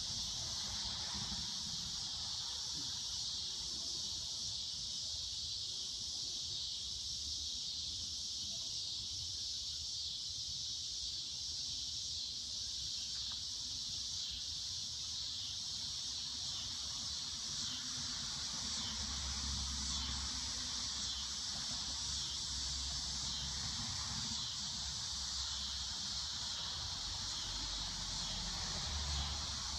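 Steady high-pitched insect chorus, unbroken throughout, with a low rumble joining in over the last third.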